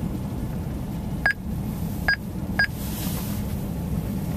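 Steady low drone of a vehicle driving, heard from inside the cab, with three short electronic beeps at about one, two and two and a half seconds in.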